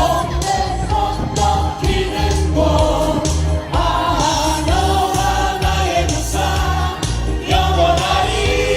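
A choir and singers perform a song over a backing track with a steady bass beat.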